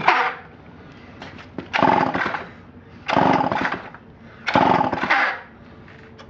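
Homelite C-5 chainsaw being pull-started: the recoil starter cord is yanked about four times, each pull a short burst of the engine turning over, and it does not catch. It has been primed with starting fluid because its old fuel has gone bad.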